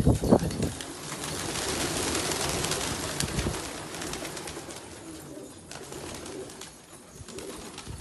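Domestic pigeons cooing, with a loud low burst right at the start and a stretch of hiss-like noise through the first half.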